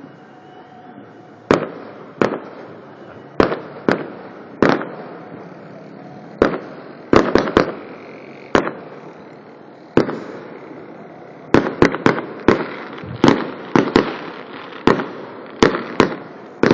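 Fireworks going off: a string of sharp bangs at irregular intervals, each with a short echoing tail, coming faster in the second half.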